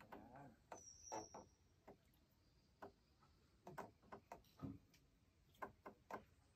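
Near silence, with faint scattered clicks and taps.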